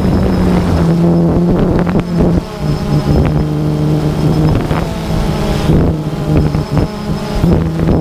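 DJI Phantom 2 quadcopter's motors and propellers buzzing steadily, heard from the onboard camera. The pitch drops about two and a half seconds in and rises again near the end.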